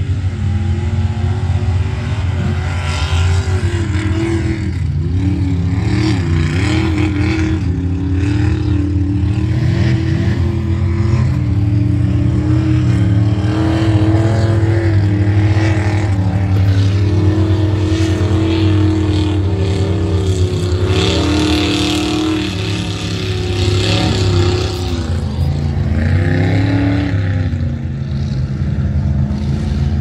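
Lifted mud-bog truck engines revving as they drive through a mud pit, the pitch rising and falling again and again over a steady low rumble.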